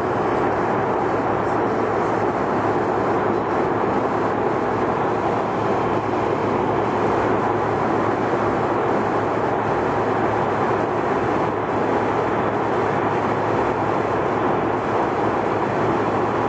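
Steady rushing noise of jet engines and airflow inside an airliner cabin in flight, unchanging throughout, with a faint low steady hum beneath it.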